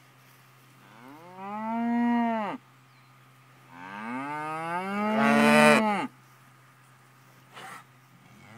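Beef cattle mooing: two long drawn-out moos, each rising in pitch and then falling away, the second longer and louder, with the start of another moo at the very end. A faint, steady low hum runs underneath.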